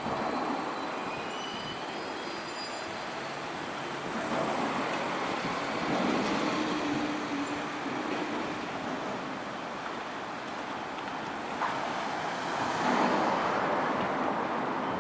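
Road vehicles passing one after another, with two louder passes about four and twelve seconds in.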